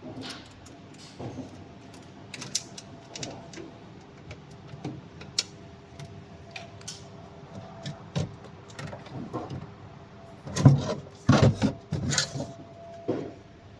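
Irregular clicks, knocks and rattles of parts being handled on a machine, with a faint steady hum underneath. A cluster of louder knocks comes about eleven to twelve seconds in.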